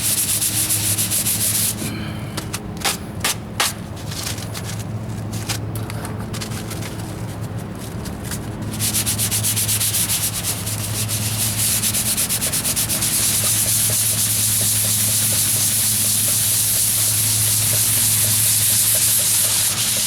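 Sandpaper on a soft sponge sanding block rubbing over filler primer on a truck's sheet-metal wheel arch, in fast back-and-forth strokes. Between about two and nine seconds in the rubbing goes quieter, with a few light taps, then it picks up steadily again.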